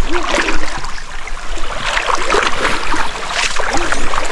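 Shallow river water splashing in irregular bursts over a steady rush of running water, as someone wades over slippery rocks.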